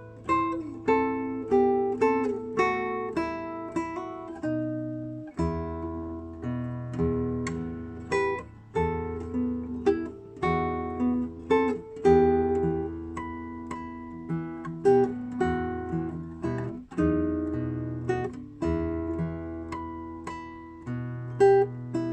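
Music on a plucked string instrument: a Venetian boat song (barcarolle) melody of plucked, decaying notes over a low bass line.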